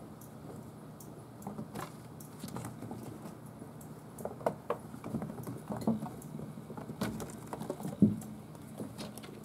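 Small kittens' paws running and scuffling on a wooden floor and a carpeted cat tree: scattered light taps and knocks, with one louder bump about eight seconds in.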